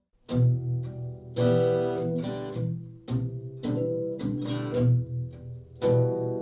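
Instrumental passage of a song: acoustic guitar strummed in ringing chords, coming in after a brief gap about a third of a second in.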